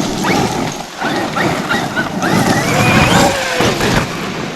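Traxxas XRT RC monster truck being driven hard: its electric motor whines up in a series of short throttle bursts, with one longer held whine about halfway, over a steady rushing noise from the tyres and drivetrain.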